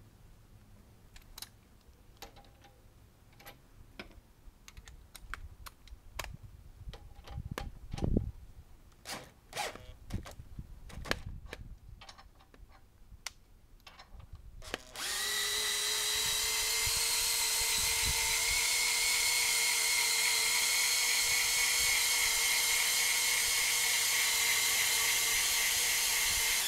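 Cordless drill driving the lead screw of a portable scissor jack, lifting a Lambretta scooter under load. A steady whine starts about halfway through and cuts off suddenly at the end. Before it come scattered clicks and knocks as the drill is fitted to the jack.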